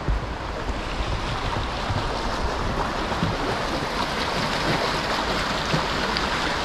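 Fast-flowing stream rushing under a footbridge: a steady wash of water noise that grows a little louder about a second in, with some wind rumble on the microphone.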